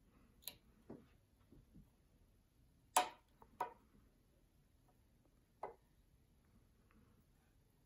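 Faint, irregular small clicks and taps of hands working thread and marabou at a fly-tying vise. The two sharpest clicks come about three seconds in, half a second apart, and another comes a little before six seconds.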